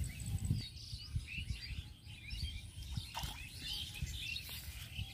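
Small birds chirping, short twittering calls scattered through, over a low rumble.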